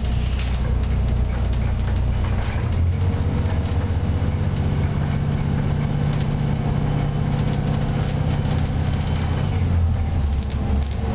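Volvo B7TL double-decker bus's six-cylinder diesel engine running under way, a steady low drone heard from the upper deck with road noise. The engine note shifts about three seconds in and again near the end.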